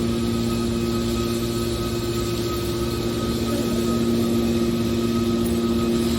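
Hydraulic power unit of a metal scrap compactor baler running steadily, with a constant hum.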